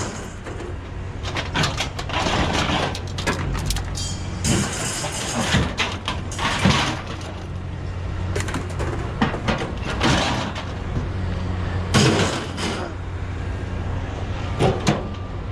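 Vehicle engine idling with a steady low hum, under a series of irregular knocks, clanks and rustles of scrap being handled; the loudest clatters come around 7 and 12 seconds in.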